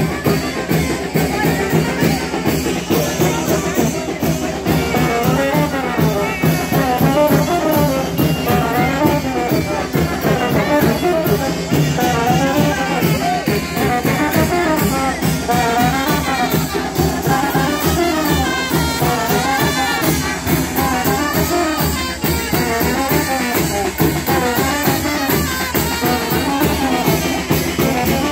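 Brass band playing brinco del chinelo dance music: trumpets and trombones carry a wavering melody over a steady, driving drum beat.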